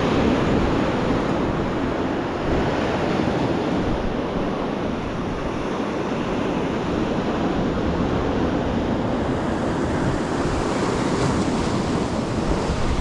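Sea surf breaking on a rocky shore, mixed with strong gale wind buffeting the microphone: a steady rushing noise with no separate events.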